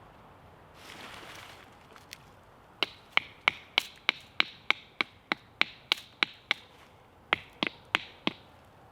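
Tent stakes being hammered into the ground: a run of sharp strikes, about three a second, each with a short ring, pausing briefly and going on again near the end. A short rustle about a second in.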